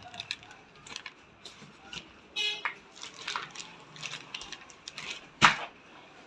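Clear plastic packaging crinkling and rustling in the hands, with scattered short crackles, and a sharp crack or thump about five seconds in, the loudest sound. A brief high honk-like tone sounds about two and a half seconds in.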